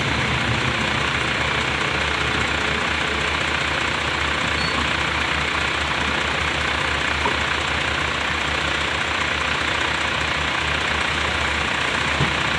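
Tata Hitachi ZX470 excavator's diesel engine running steadily, with a fast low pulsing under a dense mechanical rattle.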